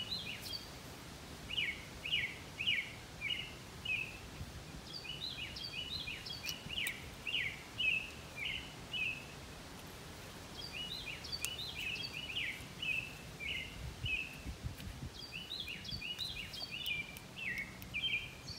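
A songbird singing four songs of quick, repeated chirping notes, each a few seconds long. Beneath them are faint clicks and knocks.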